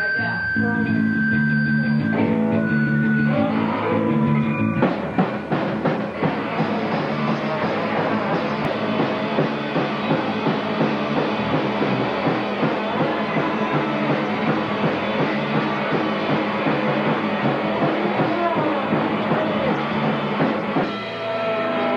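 Amateur rock band playing live on drum kit and guitar: held guitar chords at first, then about five seconds in the drum kit comes in with fast, busy drumming under the guitar, dropping out again near the end.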